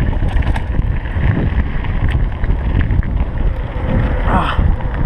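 Wind buffeting the microphone of a helmet-mounted camera as a mountain bike rolls fast down a gravel road, with tyre crunch and small rattles of the bike. A short wavering squeak about four seconds in.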